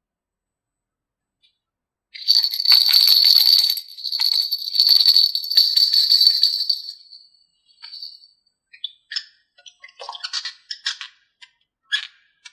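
Two bursts of bright jingling rattle, then a run of scattered light clicks and taps.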